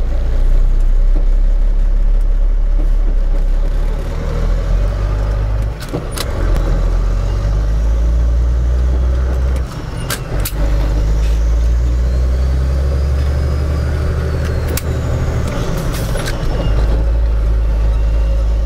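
Truck engine running, heard from inside the cab, while the driver works a manual gearbox. The engine sound dips and changes pitch about 6 s in and again about 10 s in, as gears change, with a few sharp clicks from the shifter and cab.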